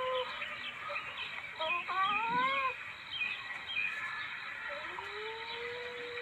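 Civet calling: a long, steady, whining cry that breaks off near the start, a few short rising, wavering cries around two seconds in, then a cry that rises about five seconds in and settles into a long steady note. Faint high chirps sound behind it.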